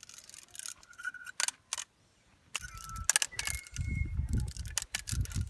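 Irregular clicking and rattling of a small spinning fishing reel being cranked as a catfish is reeled in. From about two and a half seconds in, a low rumble of handling noise on the microphone joins the clicks.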